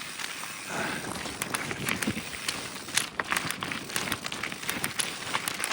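Mountain bike coasting fast down a rocky trail: tyres rolling and crunching over rock and loose stones, with frequent sharp clicks and rattles from the bike.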